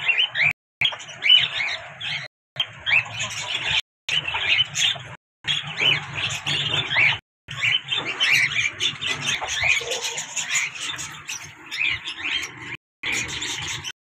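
A flock of caged cockatiels chirping and squawking continuously, many short rising calls overlapping, broken by a few brief dropouts in the sound.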